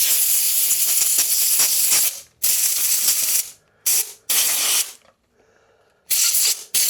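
Compressed-air blow gun blasting dust and grit out of motorcycle electrical connectors in loud hissing bursts: one long blast of about two seconds, then several shorter blasts.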